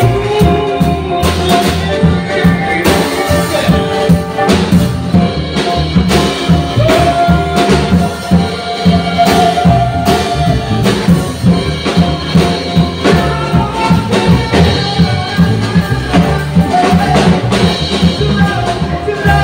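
Live jazz-style band of grand piano, upright double bass and drum kit playing, with a man's singing voice on top that holds one long note about seven seconds in.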